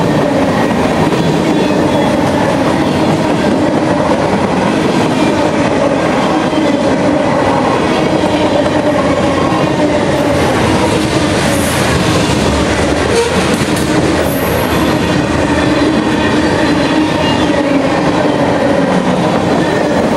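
Freight cars of a passing train rolling by: a steady, loud rumble and clatter of steel wheels on the rails.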